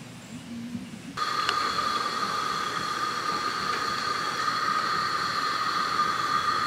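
A gas camp stove burner hissing steadily under a cooking pot, with a faint whistling tone in the hiss; it comes in abruptly about a second in.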